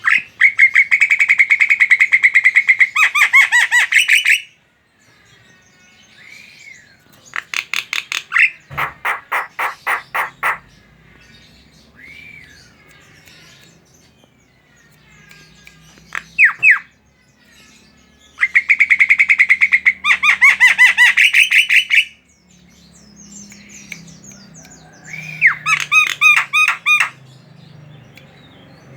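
Javan myna chattering: several bursts of a few seconds each, made of fast runs of harsh repeated notes, with single short whistled notes in the pauses between them.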